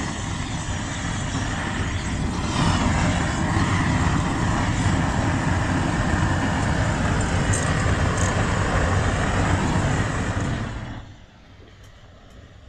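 Hose-fed gas torch burning with a loud, steady roar as its flame singes offal on a wire grill. The roar drops suddenly to a much quieter level near the end.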